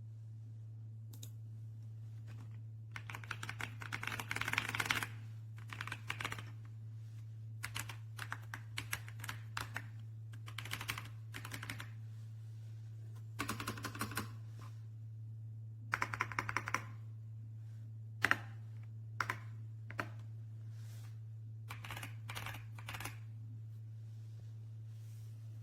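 Typing on an RK Royal Kludge S98 mechanical keyboard: runs of key clicks in bursts, with short pauses between them. A steady low hum sits underneath.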